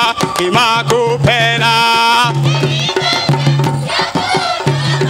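Live stage performance of drums and percussion with a group singing a chanted song line. The voices are strongest in the first two seconds, and the repeating drum pattern carries on under them.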